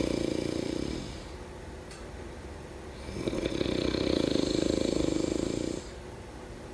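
A person snoring in sleep, in slow cycles. The tail of one snore fades in the first second. A long, low, fluttering snore runs from about three seconds in for some two and a half seconds, with quieter breathing between the snores.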